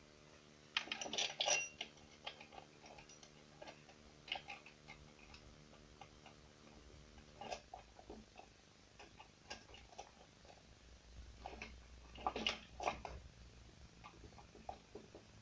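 Scattered light clicks and metallic clinks of hands working on a chainsaw as its bar, chain and cover are fitted back on. Small clusters come about a second in and again near the end.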